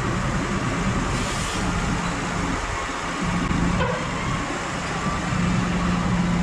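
Case Maxxum 150 tractor engine running steadily under load while hauling a grain trailer, a constant low drone with a steady hum.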